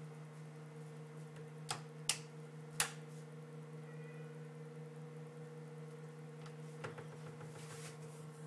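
Steady electrical hum of a microwave oven running, with three sharp clicks a little under two to three seconds in.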